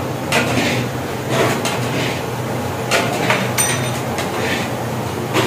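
Metal spatula scraping and knocking against a large cooking pan as carrot halwa is stirred, in irregular strokes about once a second, over a steady low hum.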